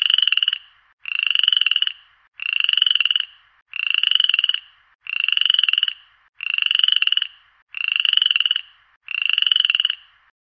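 A frog's call, a rapid pulsed croak repeated eight times, each under a second long and about one and a third seconds apart, stopping near the end.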